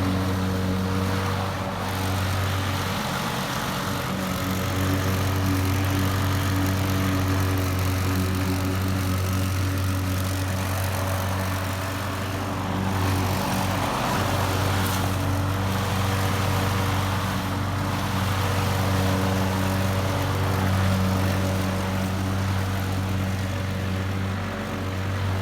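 Gas-powered lawn mower engine running steadily while cutting grass, its note dipping briefly a few times.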